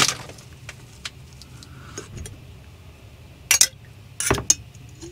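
Clicks, clinks and short rustles of food containers and utensils being handled while filling a burrito, a sharp click at the start and two brief rustling bursts later on, over a low steady hum.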